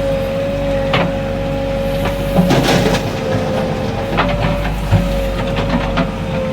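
JCB 3DX backhoe loader's diesel engine running under load, with a steady high whine over the engine rumble and several sharp knocks and clanks from the working machine.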